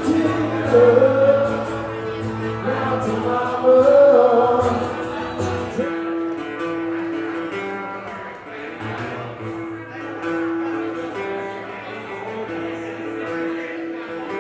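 Live country music: singing over guitar and bass for about the first six seconds, after which the instruments play on without a voice.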